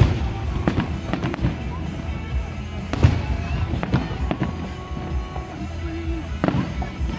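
Aerial fireworks shells bursting in a series of sharp booms and cracks, the strongest at the start, about three seconds in and near the end, with a low rumbling echo between them.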